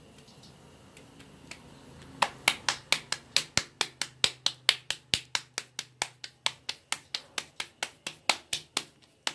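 A potato-stuffed kachori being patted flat between the palms, dough slapping on hand in a quick, even rhythm of about four slaps a second that starts a couple of seconds in.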